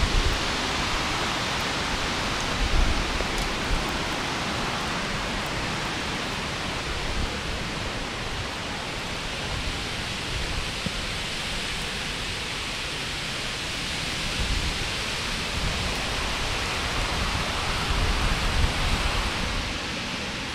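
Steady heavy rain falling on the trees in a thunderstorm, with a few low rumbles, about three seconds in and again near the end.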